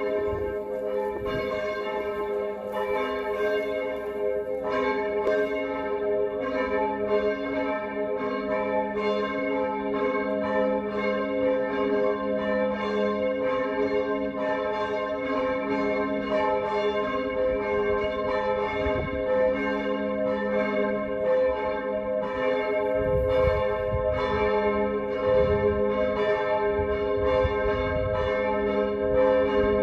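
Several church bells ringing together as a peal, a steady stream of overlapping strikes over their held tones.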